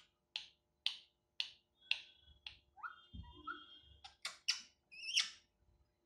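Ringneck parrot giving a run of short, sharp calls about two a second, a few brief whistled glides in the middle, then a quicker cluster of louder squawks near the end.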